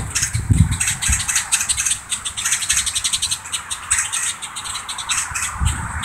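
A flock of grackles calling from the trees in a dense, rapid chatter of short, sharp chips and clicks, many a second: agitated alarm calls at a person they are mobbing.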